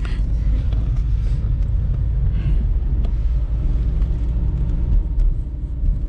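Steady low rumble of a Nissan Terrano SUV driving, heard from inside the cabin: engine and road noise.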